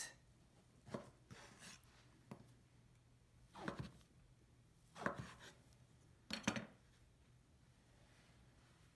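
A chef's knife cutting down through a soft, rehydrated block of koyadofu (freeze-dried tofu) onto a wooden cutting board: about six quiet, unevenly spaced strokes, each ending in a soft knock on the board, stopping about two-thirds of the way through.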